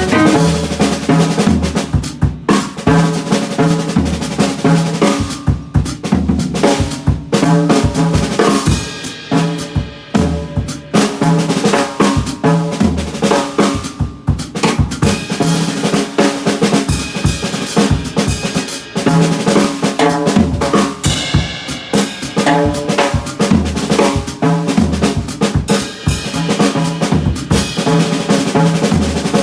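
Band music driven by a drum kit, with kick and snare hits over steady bass notes and chording instruments.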